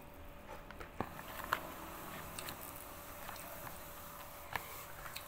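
Scattered light taps and clicks of food being handled by hand on a plastic plate, over a faint steady hum.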